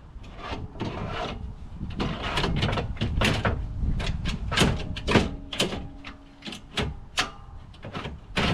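Repeated clacks, knocks and scraping of a metal slide-out cargo drawer unit being handled and slid into place.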